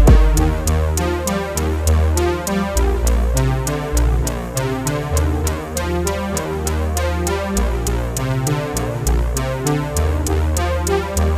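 Electronic background music with synthesizer and a steady drum-machine beat.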